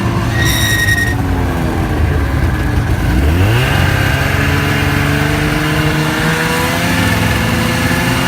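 Snowmobile's two-stroke engine running under way. It eases off, then revs up sharply about three seconds in and holds with a slowly climbing pitch. A brief high beep sounds about half a second in.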